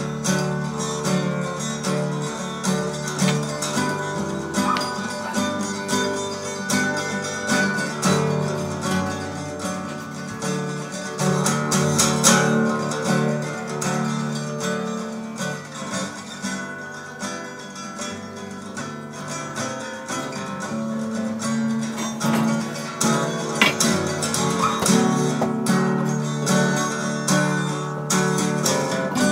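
Background music played on acoustic guitar.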